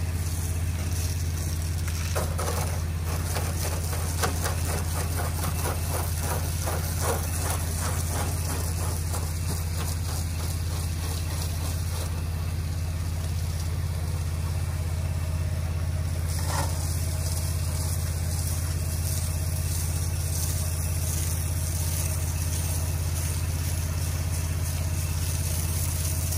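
Steady hum of a running pressure washer engine and pump, under the hiss of a low-pressure water stream from an open ball valve spraying the house wall.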